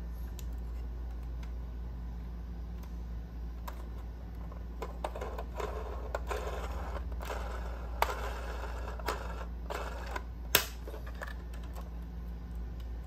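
Small clicks and rubbing of a diecast Range Rover Sport scale model being handled, its doors opened and its body turned over in the hands, with two sharper clicks in the second half.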